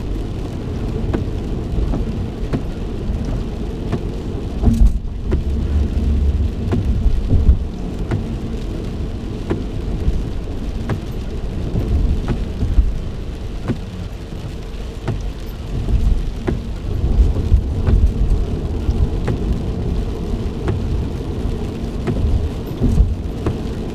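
Rain striking a car's roof and windshield, heard from inside the moving car as a dense patter of sharp drops over a low, uneven rumble of road and engine.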